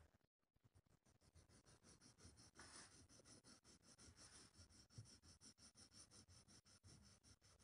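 Faint scratching of a pencil shading on sketchbook paper in quick back-and-forth strokes, several a second.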